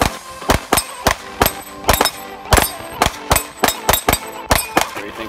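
Handgun fired in a rapid string of about a dozen shots, two to three a second.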